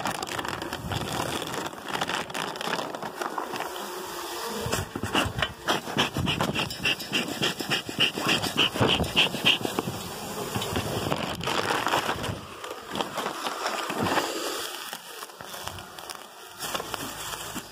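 Clear plastic sheeting rustling and crinkling as it is handled over an open beehive's frames, with honeybees buzzing.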